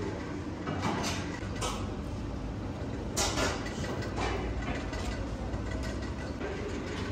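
Steady rumbling background noise of a working kitchen, with a few short clatters from handling about one, one and a half, three and four seconds in.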